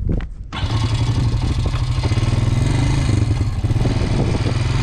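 A vehicle engine running steadily. It comes in suddenly about half a second in, a low, fast-pulsing hum.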